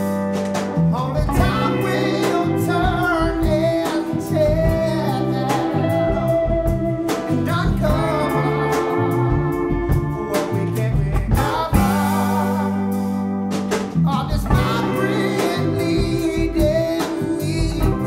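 A live band playing a song: a man singing over electric guitar, bass and drums.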